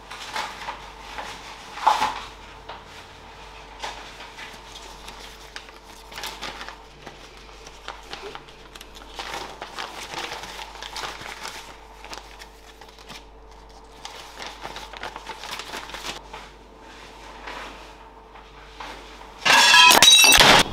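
Paper rustling and crinkling as crumpled sheets are handled, with scattered light clinks of kitchen dishes and utensils. A sudden loud harsh burst cuts in about a second before the end.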